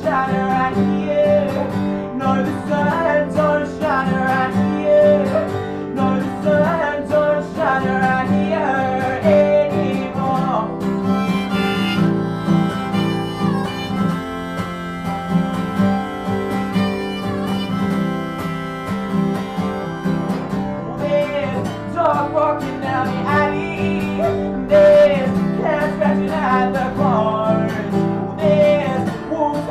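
Live acoustic guitar playing, with a melody line over it that bends in pitch; held, steady notes in the middle stretch.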